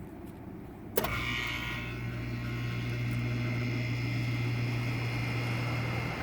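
2007 Luxaire Climasure 1.5-ton heat pump starting up: a sharp click about a second in, then the compressor running with a steady low hum and a fainter high whine.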